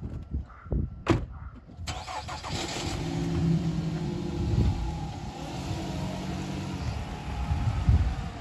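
A car door shuts with a thud about a second in. Then a Nissan Rogue SUV's engine starts and keeps running as the car pulls away.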